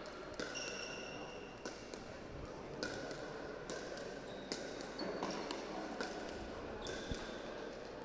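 Pickleball dink rally: a plastic ball popping off paddles about once a second, with short high squeaks between the hits, in a large echoing sports hall.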